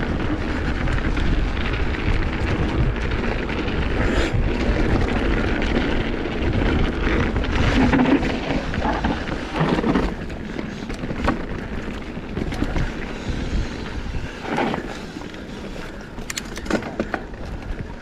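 Mountain bike ridden fast along a trail: wind buffets the microphone, with scattered knocks and rattles from the bike.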